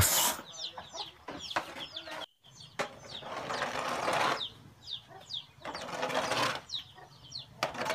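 Chickens peeping and clucking with many short, high, falling chirps. Two longer breathy hisses come near the middle.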